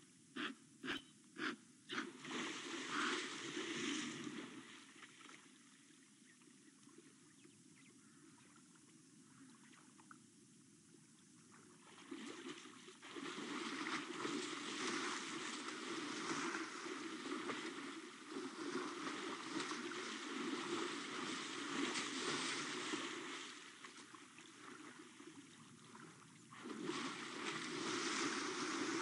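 African elephant splashing in a shallow waterhole, kicking and sloshing the water in bouts. A few quick, even splashes open it; after a quieter spell comes a long stretch of heavy splashing, then a short lull and more heavy splashing near the end.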